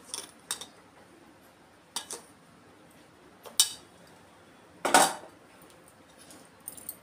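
Steel spoons and bowls of a stainless-steel spice box clinking as they are handled: scattered sharp metal taps, with a louder ringing clatter about five seconds in.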